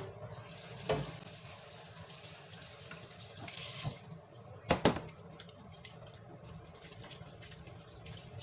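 Water running from a tap into a stainless steel sink for about four seconds. About five seconds in an aluminium pot is set down in the sink with a couple of sharp knocks. Faint wet squelching follows as salted grated green papaya is squeezed by hand in the pot.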